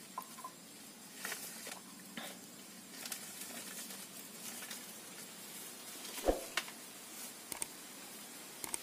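Dry sticks and twigs clattering and scraping as they are picked up and gathered for firewood, with scattered light knocks and one louder thud about six seconds in.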